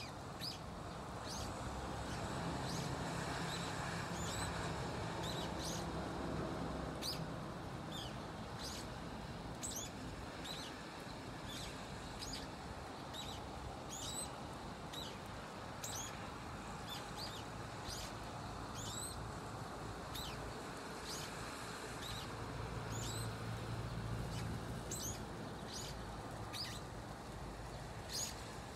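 Brown-eared bulbul giving soft, chick-like calls: short, thin, high notes sweeping steeply in pitch, repeated about once a second, over a low steady background hum.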